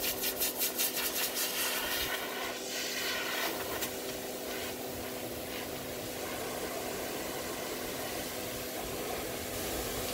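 Dog grooming dryer running steadily, a strong rush of air over a motor hum, its nozzle blowing through a Great Pyrenees' thick coat. The airflow flutters rapidly for the first couple of seconds, then settles to an even hiss.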